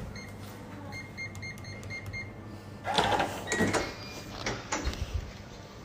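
A quick run of about eight short electronic beeps, all on the same pitch. From about three seconds in come several louder, irregular noises.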